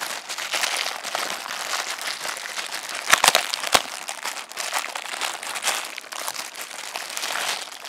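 Clear plastic film wrapping crinkling and rustling as it is pulled off by hand, with two or three sharp snaps a little past three seconds in.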